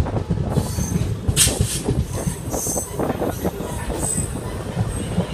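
Passenger train running over jointed track, heard from an open coach door: a steady rumble with irregular wheel-on-rail knocks, and several brief high-pitched wheel squeals. A diesel-hauled passenger train passes on the adjacent track.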